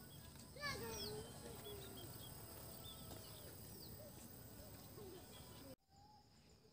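Faint bird calls, short chirps and a few whistled glides, over a quiet outdoor background; the sound cuts off suddenly to near silence about a second before the end.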